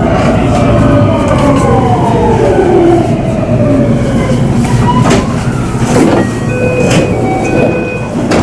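Marine Liner electric train's motor whine falling steadily in pitch as it slows for a station. Over the second half come a few sharp clicks and short high steady tones as it comes to a stop.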